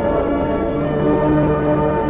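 Background music with long held notes, several tones sounding at once.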